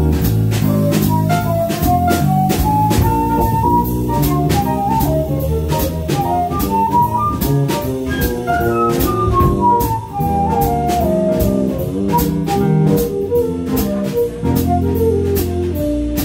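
Small live jazz band playing: a wind instrument carries a stepping melody over drum kit with steady cymbal strokes, double bass and guitar.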